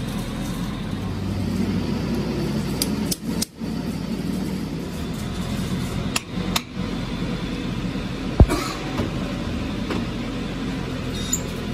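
Steady low machine hum in a metal workshop, dropping out briefly twice, with one sharp metal knock about eight seconds in.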